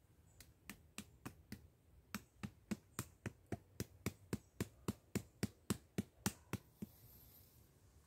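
Rhythmic wood-on-wood tapping, about two dozen sharp knocks at three to four a second, as wooden sticks are knocked together or into place on a lashed stick frame. The knocks pause briefly once, grow louder and stop about a second before the end.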